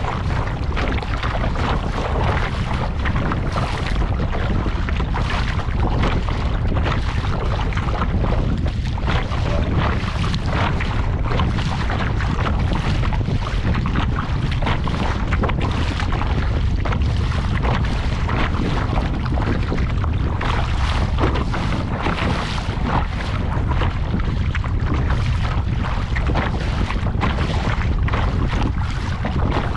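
Wind buffeting the microphone in a steady low rumble, over water splashing and lapping against a kayak.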